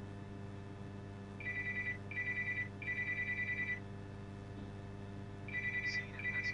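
Telephone-style electronic ring, a fast trilling tone in three bursts, two short and one longer, which starts again near the end, over a steady electrical hum.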